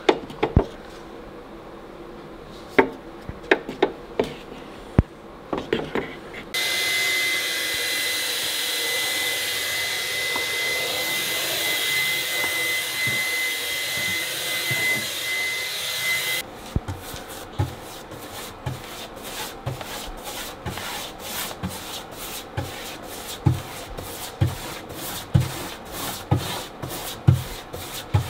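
A Dyson-style cordless handheld vacuum runs steadily with a high whine, switching on about six seconds in and cutting off about ten seconds later. Before it come light taps and scrapes of a stick stirring paint in a metal tin. After it, a paintbrush scrubs on a cupboard shelf in quick, even strokes, about three a second.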